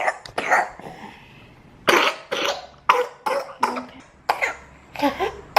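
A 14-month-old toddler, sick with a common cold, coughing: a string of short, sharp coughs, one just after the start and then a run of several more after a pause of about a second.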